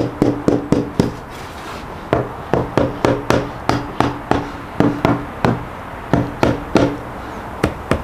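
Claw hammer tapping a wooden floor piece down into a wooden nest box to fit it: a steady run of knocks, about three to four a second, with a short pause about a second in. Each knock rings with a hollow wooden tone.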